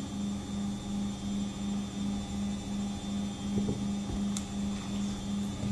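A steady low electrical hum that pulses about three times a second, with a faint high whine above it and a faint click about four seconds in.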